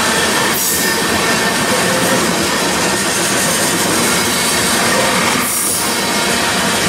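Freight train of covered hopper cars rolling past close by: a loud, steady rush and rattle of steel wheels on rail.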